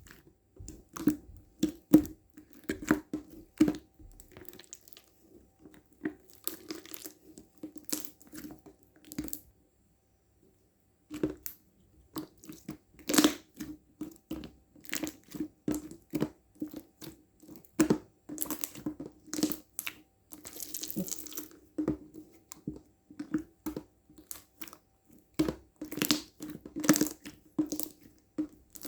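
Milk slime being squeezed, pressed and stretched by hand, making a quick, irregular run of wet clicks, pops and squelches. There is a short pause about a third of the way through.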